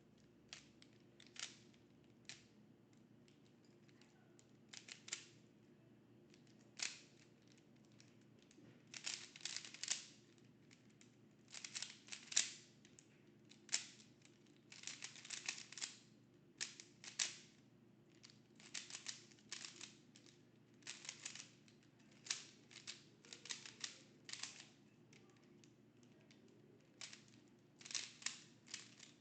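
A plastic Rubik's-type speedcube being turned fast during a speedsolve: quick flurries of clicking and clacking from the layers, broken by short pauses.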